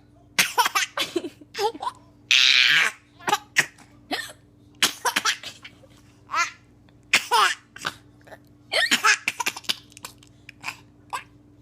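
A young child laughing and hiccuping: a string of short, pitched laughs and hiccups every second or so, with one longer breathy burst a couple of seconds in.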